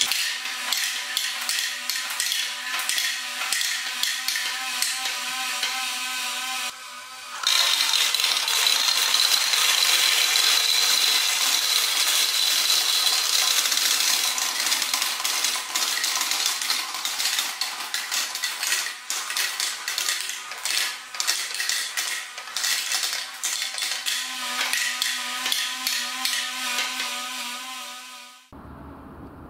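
Small plastic balls clattering down a plastic water marble-run slide, many quick clicks and rattles over water pouring and splashing into the basin. A steady hum sits under the first few seconds and again near the end, and the sound drops away just before the end.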